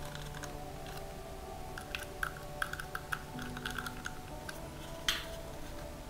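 A precision screwdriver clicking and ticking as Torx mounting pins are screwed into the side of a 2.5-inch Samsung 860 EVO SSD. A run of small clicks comes about two to three seconds in, and a sharper knock about five seconds in, over quiet background music.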